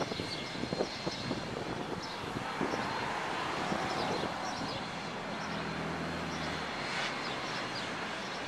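Distant NZR Ja-class steam locomotive and its train approaching slowly through the rail yard: a steady rumble with scattered clicks in the first few seconds and a low hum joining about halfway through.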